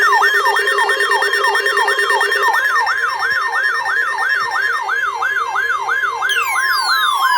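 Electronic emergency-alert siren: a falling sweep repeated about three times a second over steady high tones, with a long falling glide coming in near the end. It is the attention signal that comes before a broadcast severe thunderstorm warning.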